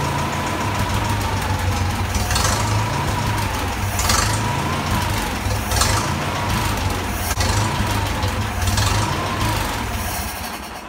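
Massey Ferguson 65 tractor's four-cylinder gasoline engine running and surging, its speed rising and falling about every two seconds, a sign that it is starving for fuel. It dies away near the end.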